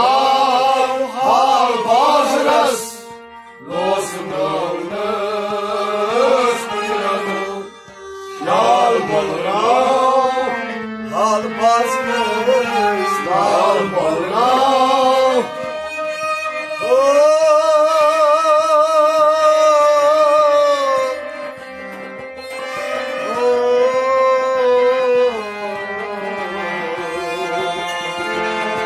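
A male singer performs a Kashmiri Sufi song with instrumental accompaniment. He sings ornamented phrases and, a little past the middle, a long held note with a wavering pitch.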